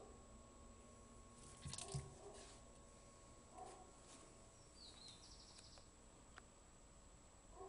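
Near-quiet room with a couple of dull knocks about two seconds in, about when a boa constrictor strikes and coils around a mouse, and a short high chirp about five seconds in.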